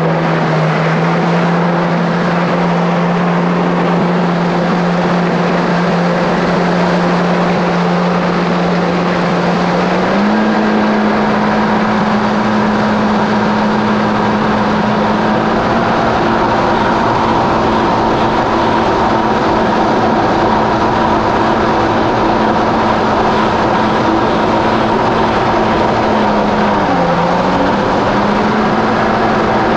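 Kawasaki SX-R 1500 stand-up jet ski's four-cylinder four-stroke engine running steadily under way. Its pitch steps up about a third of the way in, then dips briefly near the end and comes back up.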